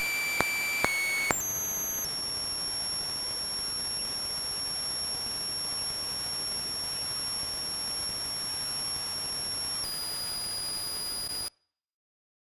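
Synthetic test sound played back: a mostly harmonic, high-pitched electronic tone with overtones that jumps to a new pitch several times over a faint hiss. Three sharp pops in the first second and a half are the transients meant to be separated out. It cuts off about a second before the end.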